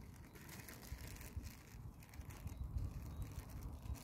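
Faint rustling and light clicks of small plastic tackle packets and a container being handled, over a low wind rumble on the microphone.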